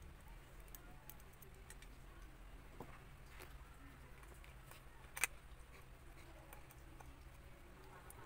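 Faint scattered clicks and taps of electrical wire being handled and fitted into a 4x4 receptacle box, with one sharper click about five seconds in, over a low steady hum.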